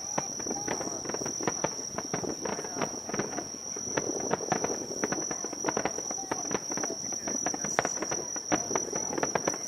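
Insects trilling: one steady high-pitched note without a break, over the murmur of a crowd's voices and many scattered small taps.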